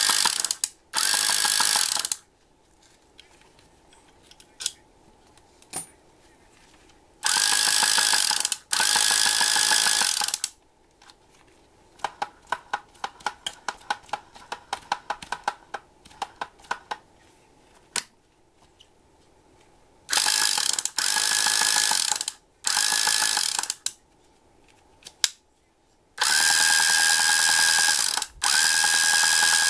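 Vintage Miyamae Miya Epoch 300 electric fishing reel's motor spinning the spool in short runs of a second or two, about eight times, a whirring whine with a steady high tone. Midway, a run of quick clicks from the reel's mechanism.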